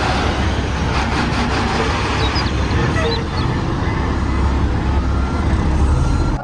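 Heavy loaded dump truck driving on a dirt track: a steady low diesel engine drone under an even spread of road noise, cutting off abruptly at the end.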